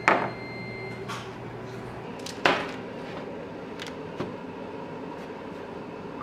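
Household handling sounds: two sharp knocks about two and a half seconds apart and a few lighter clicks, over a low hum that stops about two seconds in.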